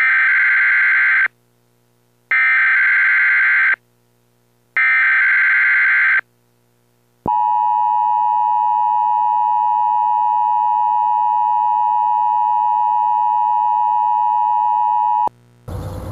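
Emergency Alert System signal: three short, shrill data bursts a second apart, then the steady attention tone held for about eight seconds before cutting off. A noisier sound starts just at the end.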